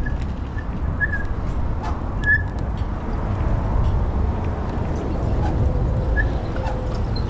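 Steady low rumble of urban traffic noise, with a few short high chirps scattered through it.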